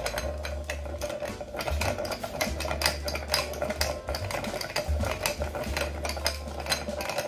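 Long bar spoon stirring ice cubes in a highball glass: a steady run of quick clinks and rattles of ice and metal against the glass.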